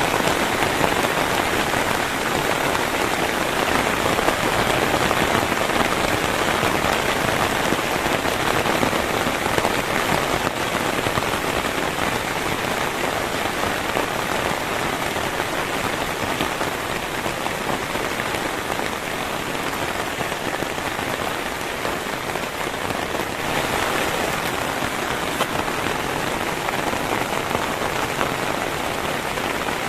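Heavy rain falling steadily, a dense, even hiss and patter of drops.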